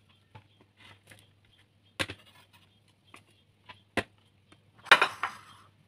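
Kitchen knife on a wooden cutting board: light taps while green chillies are sliced, two sharp knocks about two and four seconds in, then a louder clattering scrape near the end.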